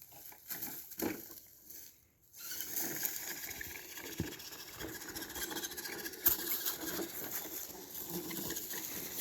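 Redcat Everest 10 RC rock crawler running, its electric drive motor and gears giving a faint steady whine as it crawls. It comes in short broken snatches at first, then runs steadily from about two seconds in.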